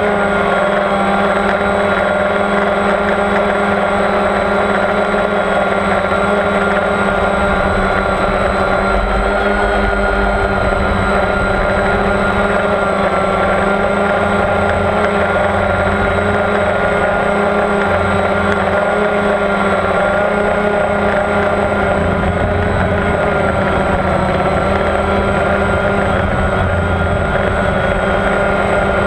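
Motor and propellers of a small remote-controlled FPV aircraft, heard close up from the onboard camera: a steady hum of several even tones that waver a little in pitch, with wind rumble on the microphone.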